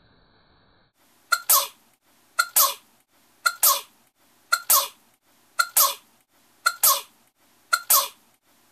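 A sneeze repeated seven times, one about every second, each a quick intake-like onset and then a loud burst; the copies are identical, so it is one sneeze looped.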